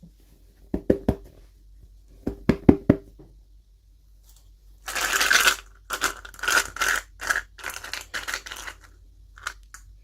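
Doll packaging being handled and torn open: a few sharp taps and knocks in the first three seconds, then a tearing rip about five seconds in, followed by a run of short rustling, crinkling strokes.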